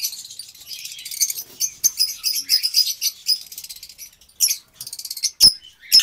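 Many lovebirds chattering: dense, rapid, shrill chirps. There is one sharp click about five and a half seconds in.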